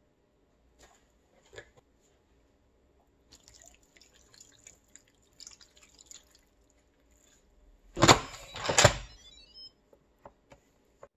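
Liquid poured into an Instant Pot's steel inner pot over layered Swiss chard, first olive oil and then water, a faint trickle and drip. Near the end the pressure-cooker lid is set on and closed, a loud clatter with a brief ringing, then a couple of clicks.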